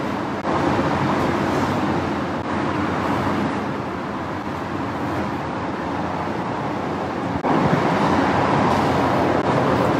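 Steady outdoor traffic and road-construction noise, an even rumble that steps up in loudness about half a second in and again near the end.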